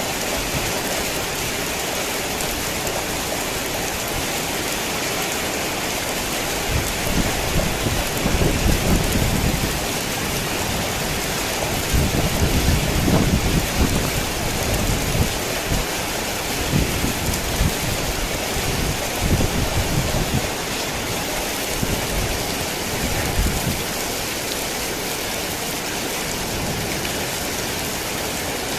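Heavy rain falling steadily, with low rolling rumbles of thunder swelling and fading through the middle stretch.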